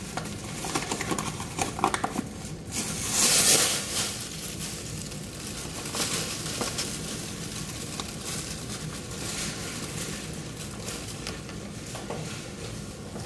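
A plastic grocery bag crinkling and rustling as seasoned flour is shaken into it from a box, loudest about three seconds in. A steady sizzle from a frying pan runs underneath.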